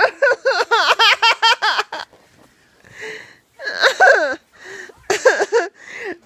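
A child's fit of giggles: a fast run of high-pitched laughs for about two seconds, then after a pause a few shorter bursts. These are involuntary, hiccup-like giggles that the child cannot hold in.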